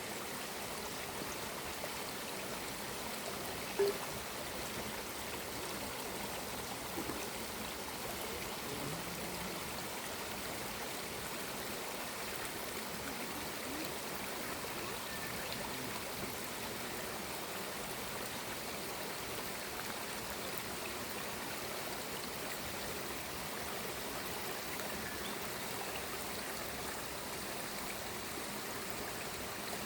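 Forest stream running steadily, a constant rush of flowing water. A single brief sharp sound stands out about four seconds in.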